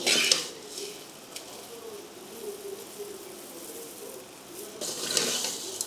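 Coriander and cumin seeds being roasted in a steel kadai, stirred and scooped with a perforated steel ladle: the seeds rattle and rustle against the metal in a short rush at the start and again about five seconds in, with quieter frying between.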